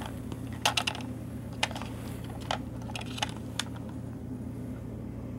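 Scattered sharp clicks and taps of AA batteries being handled in the plastic battery compartment of a Meike FC-100 ring flash controller, over a steady low hum.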